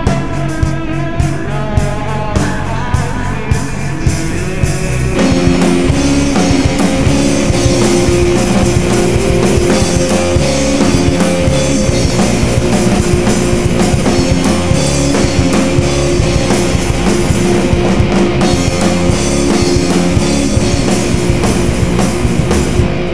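Alternative rock band playing, with a drum kit and guitars. A lighter passage with a picked guitar line over drum hits gives way about five seconds in to the full band, denser and louder.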